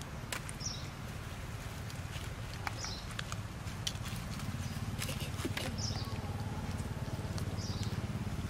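Outdoor ambience: a steady low rumble under scattered light clicks and rustles, like dry leaves being stirred, and a short high chirp every two to three seconds.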